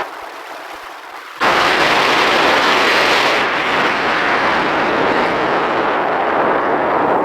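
Loud, steady rushing of wind and water on a moving boat. It comes on abruptly about a second and a half in.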